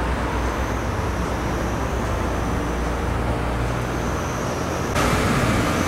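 Steady road and engine rumble of a moving car heard from inside the cabin, with no voices. About five seconds in, the noise gets louder and brighter.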